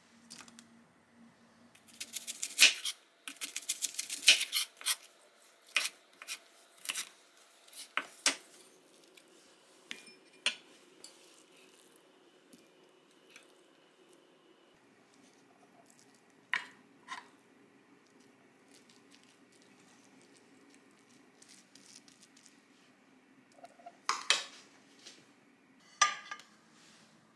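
A spatula scraping and knocking against a pan and a ceramic bowl as fried rice is scooped into the bowl. A dense run of clinks and scrapes comes a few seconds in, then scattered knocks. Near the end there are a few more clinks as the bowl is handled at a plate.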